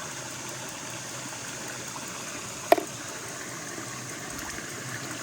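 Stream water running steadily, an even trickling rush, with one brief sharp click a little past halfway.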